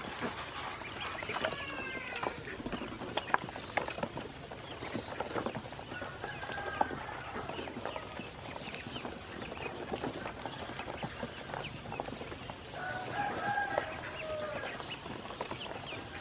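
Yellow ducklings peeping now and then, over a steady run of small clicks and splashes as they dabble and feed in a plastic basin of shallow water.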